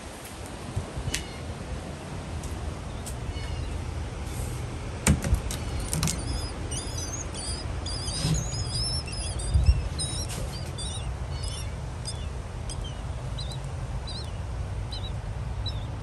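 Blackbird nestlings begging: rapid, thin, high cheeps that start about six seconds in and thin out toward the end, over a low rumble with a couple of sharp knocks.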